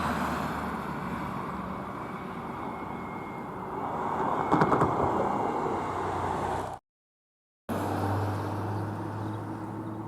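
Car driving, heard by a dash cam: steady road and engine noise with a few brief knocks partway through. The sound cuts out abruptly for about a second and returns as a steadier engine hum whose pitch rises slowly.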